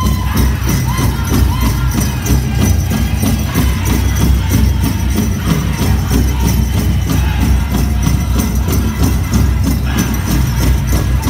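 Powwow drum music with a steady, even beat, over the jingling of bells worn by dancers.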